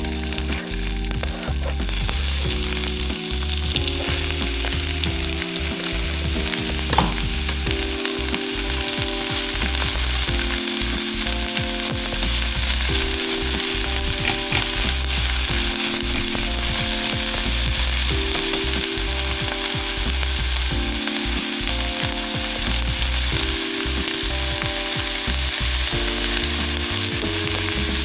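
Food frying in a hot pan, a steady sizzling hiss that comes up about two seconds in, with soft background music of slow chords underneath.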